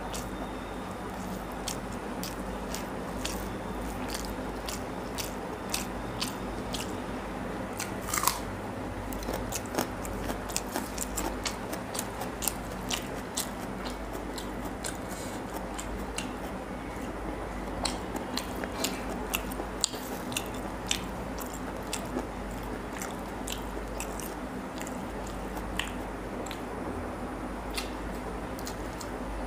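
Close-miked eating of rice and curry by hand: chewing, with frequent short, sharp wet mouth clicks and smacks scattered throughout, over a steady low background hum.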